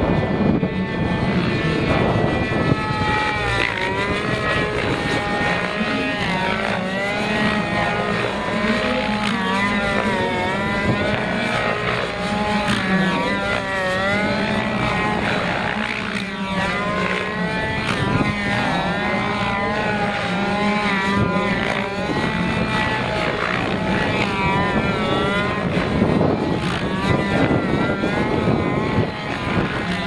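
Radio-controlled helicopter with a two-stroke petrol engine and a rotor of about 1.7 m, flying aerobatics: the engine's pitch rises and falls over and over as it manoeuvres, over a steady low hum.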